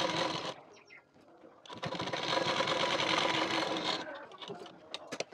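Domestic sewing machine stitching a folded hem on a cotton sleeve cuff: a run that stops about half a second in, then after a short pause a second run of about two seconds, followed by a few faint clicks.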